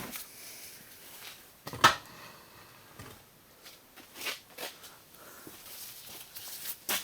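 A handful of scattered knocks and clicks from objects being handled and set down, the loudest a sharp knock about two seconds in.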